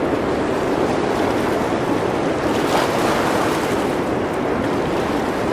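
Blizzard wind sound effect: a steady rush of wind noise.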